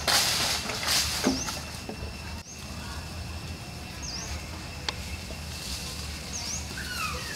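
Outdoor ambience with a bird repeating a short, quick chirp every second or two, over a faint steady high tone and a low rumble. A burst of rustling noise comes in the first second and a half.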